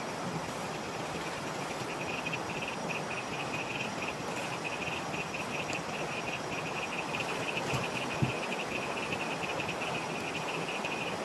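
Night insects chirping in a fast, even pulse that starts about two seconds in, over a steady hiss of water as a person moves about in it; a single low thump a little past the middle.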